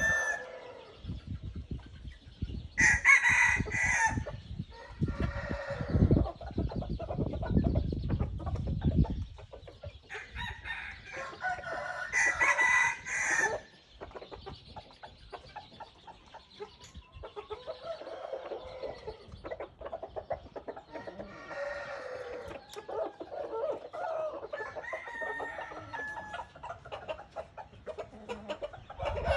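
Red junglefowl roosters crowing several times, with quieter clucking and calls in between. A few seconds of low rumbling near the start.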